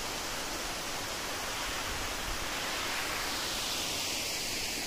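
Steady rushing of a waterfall hidden in the forest.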